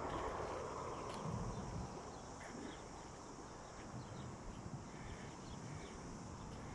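Faint footsteps on coarse sand and pebbles, with a few soft low thumps and small scattered clicks over a quiet outdoor hiss.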